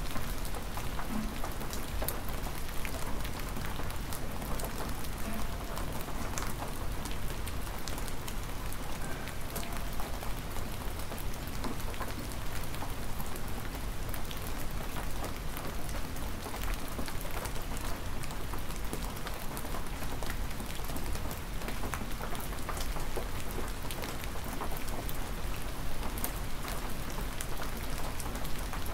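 Hard, steady rain falling, a dense even hiss dotted with many sharp individual drop hits.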